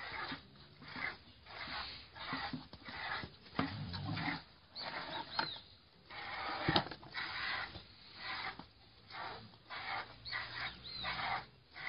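A piglet suckling at a cow's teat: a steady run of short sucking pulls, about one and a half a second, with a single sharp click a little past halfway.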